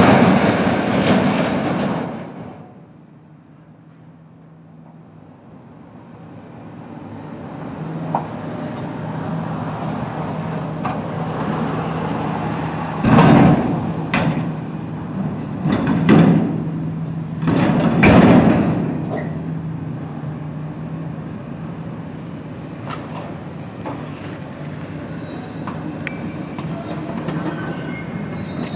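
Demolition excavator at work: its diesel engine runs with a steady low hum, three loud crashes come about halfway through, and thin high metallic squeals follow near the end.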